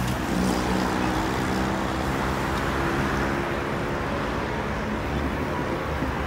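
Steady noise of heavy multi-lane road traffic, cars and buses running below.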